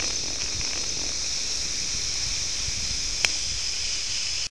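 Steady hiss of TV static, with one sharp click about three seconds in, cutting off abruptly near the end.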